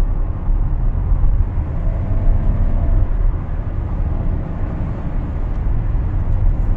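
Steady low rumble of road and drivetrain noise inside the cabin of a Maruti Suzuki Grand Vitara cruising at about 90 km/h.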